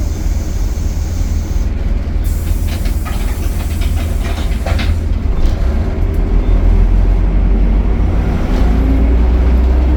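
Optare Solo single-decker bus heard from on board: the diesel engine and Allison automatic drivetrain running with a heavy low rumble and light rattles. From about halfway it grows louder, with a steady drone.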